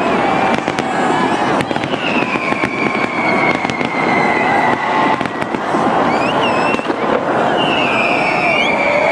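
New Year fireworks crackling and popping without a break, with sharp cracks. Over them come whistles: two long ones, about two seconds in and near the end, each sliding slowly down in pitch, and a few short curling ones.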